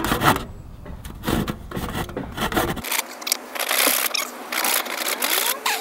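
Wooden planks rubbing, scraping and knocking against each other as they are handled, with a run of short knocks in the second half.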